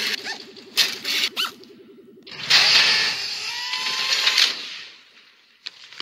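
Animated sci-fi sound effects: sharp zaps over a fast, rhythmic mechanical buzzing, then a long loud hissing blast with small whistling glides about two seconds in, fading out near the end.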